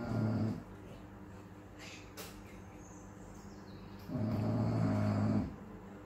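English bulldog snoring in her sleep: one snore ending about half a second in and a longer one about four seconds in, each a low buzzing rattle.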